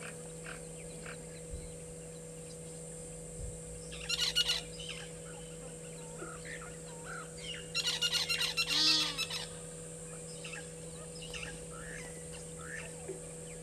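Egyptian geese calling off-screen in two bouts of rapid, pulsed honking: a short one about four seconds in and a longer one from about eight to nine and a half seconds in. Faint chirps of small birds come in between.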